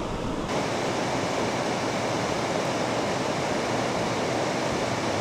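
River water rushing steadily, an even hiss that grows fuller and brighter about half a second in.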